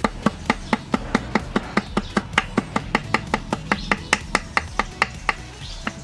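Small hammer tapping gasket material against the edge of a two-stroke reed valve block to cut out a homemade reed valve gasket: quick, even, light strikes at about four a second, pausing briefly near the end.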